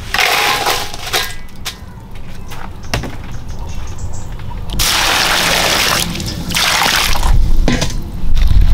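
Live water beetles tipped from a bamboo basket into an aluminium basin: a short rush followed by scattered light clicks. Then water runs into the basin and sloshes around the beetles.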